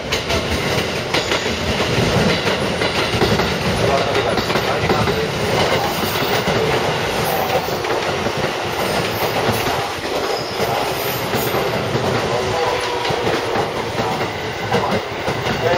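JR West electric commuter train running past close by as it pulls into the station, a steady rolling rumble with wheels clacking over the rail joints.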